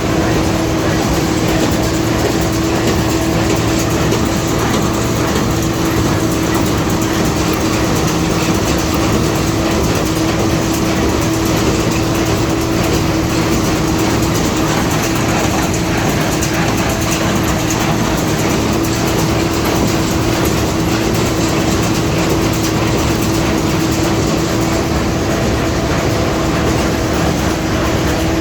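Hay balers running steadily while converting unrolled round-bale hay into square bales: a continuous mechanical clatter over a constant hum, with no pauses.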